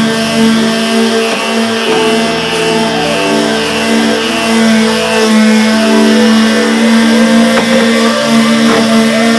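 Background music of held, sustained notes that change pitch in steps every second or so.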